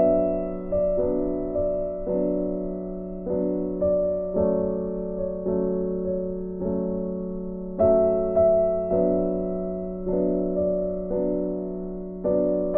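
Background music: soft keyboard chords, each struck and left to fade, with a new chord every half second to a second over a held low note.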